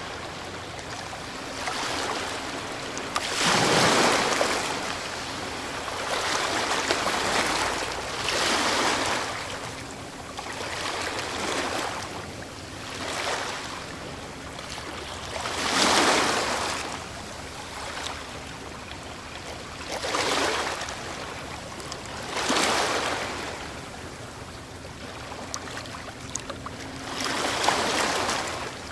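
Ocean waves breaking, one surge of surf after another every few seconds, each swelling and washing back down.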